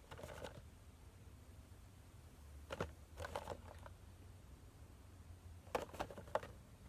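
Faint clicks and rustles of a Funko Pop cardboard box and its plastic insert being handled as the vinyl figure is taken out, in three brief spells about three seconds apart.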